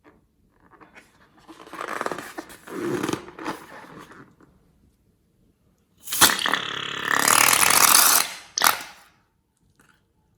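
Slime being handled and squeezed, squelching in two spells, the second and louder one about six seconds in, ending with a short sharp burst.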